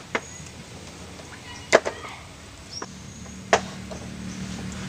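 Chess pieces knocking down on the board in a few sharp clacks: a pair at the start, another pair a little under two seconds in, and one more about three and a half seconds in.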